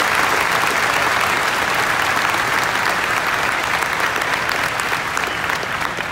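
Large crowd applauding, a dense patter of many hands clapping that eases off a little toward the end.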